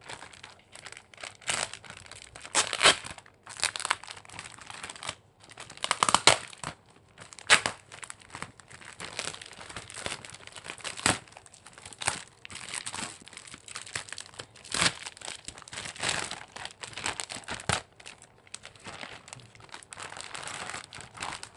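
Plastic and paper packaging being opened by hand: irregular crinkling, rustling and tearing, with several louder crackles along the way.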